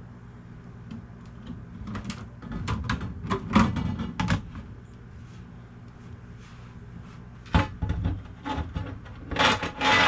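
Knocks and clatter of parts being handled and set down, in two busy spells, over a steady low hum.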